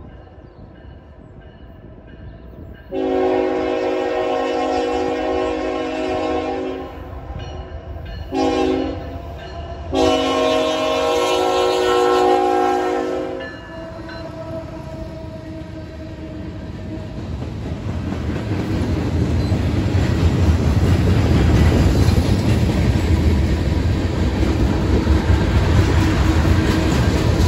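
Horn of a CSX GE ET44AH freight locomotive sounding for a grade crossing: a long blast, a short blast and another long blast. Then the train's rumble and wheel clatter grow loud as it draws up and passes.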